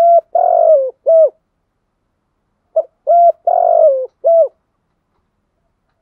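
Spotted dove cooing: two phrases about three seconds apart, each a few short coos around one longer note that falls in pitch at its end.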